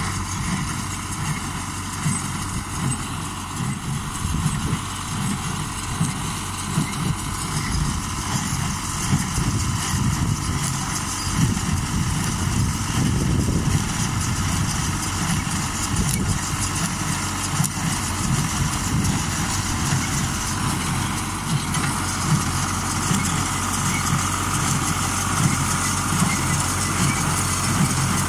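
Tractor engine running steadily as it pulls and drives a small square baler picking up straw.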